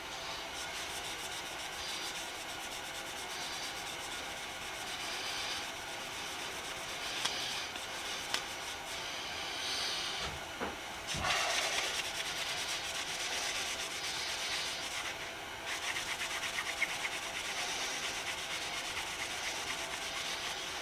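Cloth rubbing back and forth over a screwdriver, buffing off dried paste wax, with a few light knocks.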